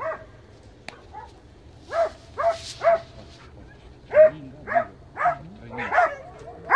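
Hunting hound barking again and again in short, irregular barks, baying at a wild boar.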